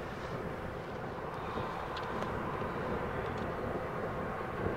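Bombardier Global 6000's two rear-mounted Rolls-Royce BR710 turbofans running at low power as the business jet rolls out along the runway after landing: a steady jet rumble and hiss with a faint whine.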